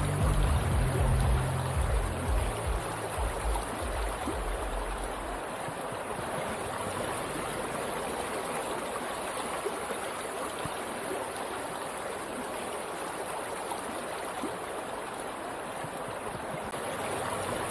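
A small creek's water rushing steadily. Low bass music fades out over the first five seconds or so.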